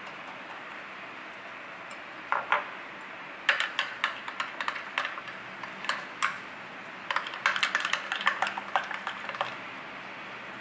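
Metal spoon clinking and scraping against a small glass bowl while stirring a thick sauce: a few clicks, then two runs of quick taps starting about three and a half and seven seconds in, over a steady hiss.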